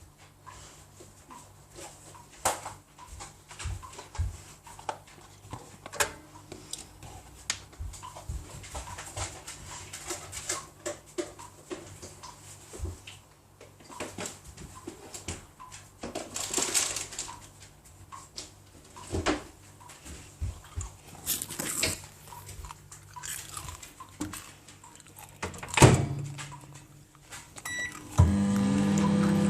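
Kitchen handling sounds: scattered knocks, clicks and rustling, with one sharp knock near the end like a microwave door shutting. A microwave oven then starts up with a steady hum that rises briefly in pitch as it gets going, heating the candy mixture.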